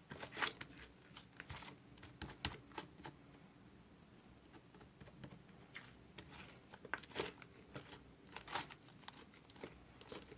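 Melted, sticky homemade slime being squished and pulled by hand, giving off irregular small clicks and crackles. The slime has gone soft and runny and clings to the fingers.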